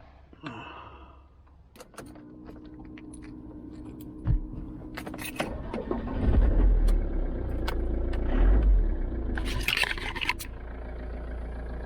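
Ford Transit campervan engine with a flat battery being started from a portable jump starter pack: a few clicks and a thump, a brief crank, then the engine catches at once and keeps running with a low steady rumble, a louder burst near the end.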